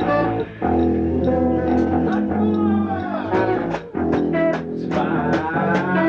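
A live band playing a rock song, with electric guitar and bass guitar over regular sharp beats.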